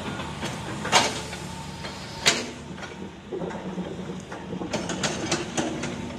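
Hitachi hydraulic excavator's diesel engine running steadily, with two sharp bangs about a second and two seconds in, then a quick run of clattering knocks near the end as the bucket works the gravel pile.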